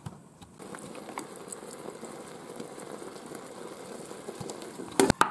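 Thin-sliced steak bubbling and sizzling in its juices and Worcestershire sauce in a hot Ninja Foodi ceramic pot: a steady crackling hiss. A couple of sharp clicks come near the end.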